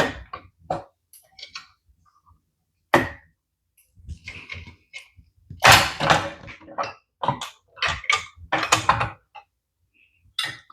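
Plastic body panel of an RC excavator being worked loose and lifted off by hand: a run of irregular clicks and knocks with stretches of scraping, loudest a little past the middle.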